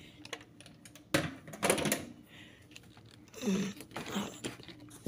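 Scattered clicks, knocks and a short scrape of a plastic blender jar being handled on its base, the motor switched off.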